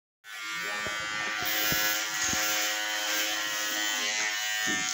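Electric hair clippers running with a steady buzz as they cut a boy's short hair.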